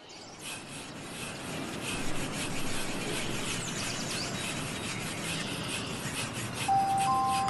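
A hand rubbing and stroking a horse's coat and muzzle in quick, irregular strokes. Two steady high tones come in near the end.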